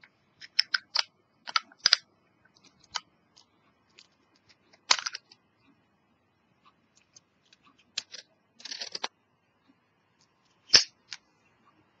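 Zippo windproof lighter being handled: a series of sharp metallic clicks and clinks as the hinged lid is flicked open and snapped shut, with a short rasp about nine seconds in, and the loudest snap about a second before the end.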